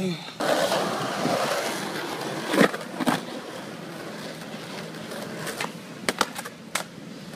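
Skateboard wheels rolling on concrete, with two sharp board clacks about two and a half and three seconds in. About six seconds in comes a quick run of snaps and clacks as the board is popped into a flip trick and hits the ground.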